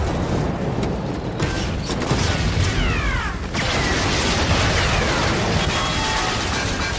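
Film battle soundtrack: rapid, continuous firing from triple-barrelled 25 mm anti-aircraft autocannon, with blasts underneath. Several descending whistles come about halfway through.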